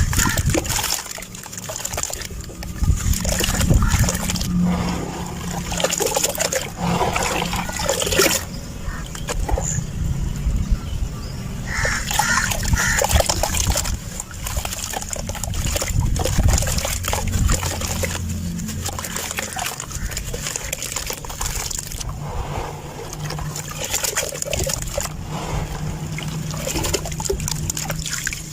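Dried sand-cement chunks being crushed and crumbled, a dense run of crackling and gritty grains trickling down.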